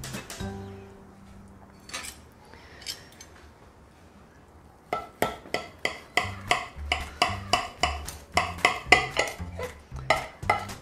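Knife and serving spoon cutting into a baked eggplant lasagna, with metal clinking and scraping against the glass baking dish. The clinks come thick and fast from about five seconds in, roughly four a second, after a quieter start.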